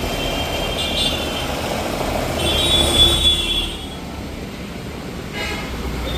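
Road traffic rumbling past, with a high-pitched horn sounding twice, the longer and louder honk about two and a half seconds in. A short knock comes near the end.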